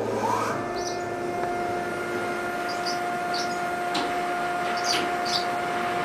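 Sawmill machinery running steadily: a motor hum with a held whine, plus a few faint, short high chirps and light ticks.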